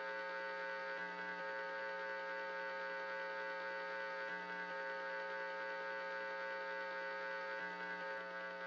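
Steady electrical hum, a buzzing drone made of many held tones, swelling slightly about every three and a half seconds; it is the background drone under a recreated Emergency Alert System broadcast.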